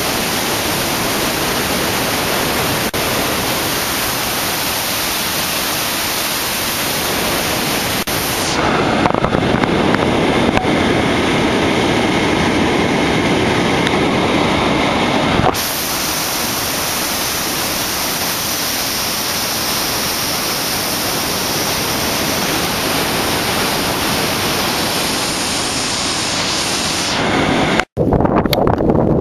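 Steady rushing roar of white water pouring between boulders in a narrow rocky gorge. Its tone shifts twice, and near the end it cuts off abruptly, giving way to wind buffeting the microphone.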